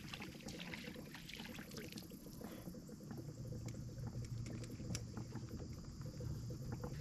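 A small crappie splashing at the surface and water dripping as it is reeled in and lifted out of the lake. There are scattered light splashes and clicks early on, and a low steady rumble comes in about three seconds in.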